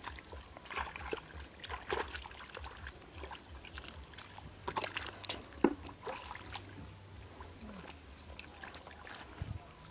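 Hands and legs squelching and sloshing in shallow mud and muddy water while groping along the bottom for fish: a run of irregular small splashes, with one sharper splash a little past halfway.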